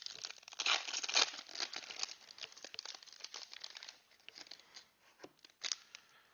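Foil wrapper of a Donruss Clearly football trading card pack torn open and crinkled by hand: dense crackling in the first two seconds, then sparser crinkles and one short sharp crackle near the end.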